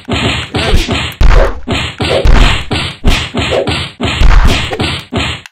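Fighting-game hit sound effects: a rapid string of punch and whack impacts, about three a second, several landing with heavy deep thuds, the heaviest around a second, two seconds and four seconds in. They stop abruptly at the end.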